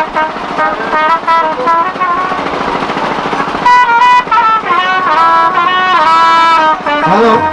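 Instrumental music from a jatra ensemble, a wind instrument leading with a melody of held notes that change pitch every second or so.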